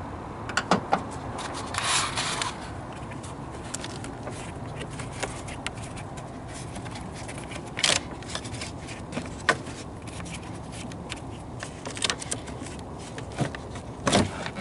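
Hands handling the plastic cowl trim and wiring harness in a car's engine bay: scattered sharp plastic clicks and knocks, with a brief rustle about two seconds in, over a steady background hiss.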